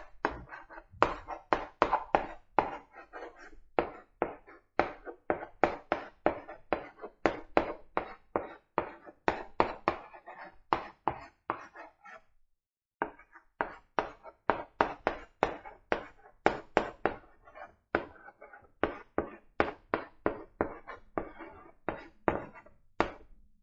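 Chalk tapping and scraping on a blackboard as a sentence is written: a quick, uneven run of short strokes, pausing for about a second around the middle.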